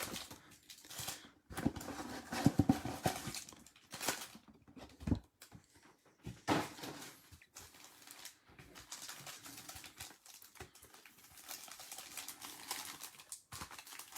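Trading cards being handled and flipped through by hand: irregular soft clicks, slides and rustles of card stock, with a few louder handling noises in the first half.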